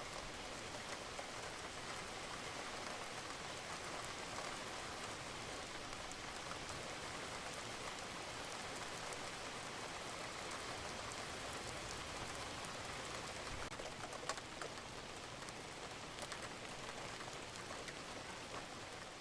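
Steady rain falling, an even hiss with scattered ticks of individual drops striking a surface, one sharper drop tick about two thirds of the way through.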